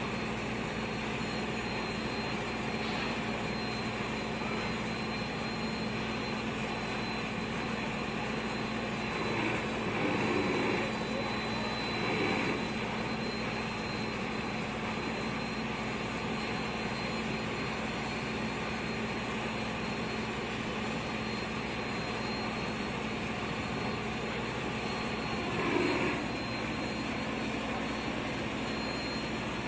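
Steady machinery drone from the cargo-unloading equipment, with a constant low hum and a faint high whine. Brief louder swells come about ten, twelve and twenty-six seconds in.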